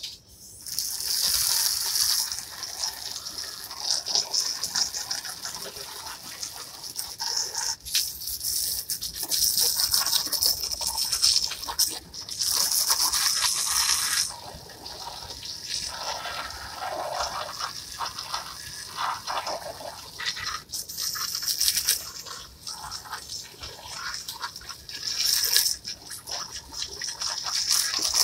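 Garden hose spray nozzle jetting water onto plastic patio chairs to wash them: a hissing spray with splashing that starts about half a second in and stops and restarts several times.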